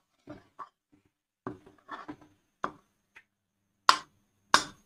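Metal spoon scraping and knocking against a nonstick kadai, stirring masala paste as it fries. Scattered short scrapes, then two sharp knocks near the end.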